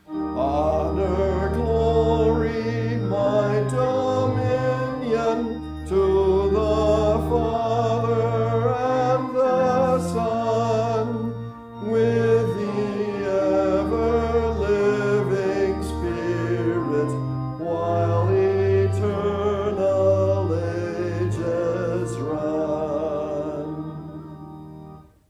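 Congregational hymn singing with organ accompaniment: a doxology stanza sung over held organ chords and deep bass notes, the final chord dying away near the end.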